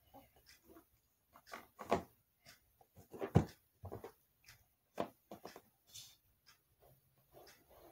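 A blue balloon being handled and rubbed in the hands, giving short, irregular squeaks and rubs, the loudest about three and a half seconds in.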